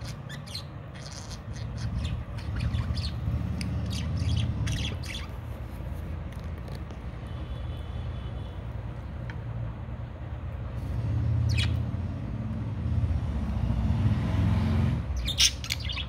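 Budgerigars giving short chirps and squawks: a scatter of them through the first five seconds, one about two-thirds of the way in, and a quick burst near the end. A steady low rumble runs underneath.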